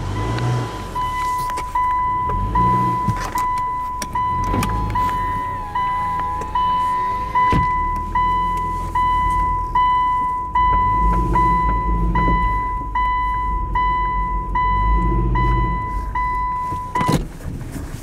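A car's warning chime sounds a single tone with a quick fade, repeating about once every 0.8 seconds over the low running of the car's engine. The chime stops about a second before the end.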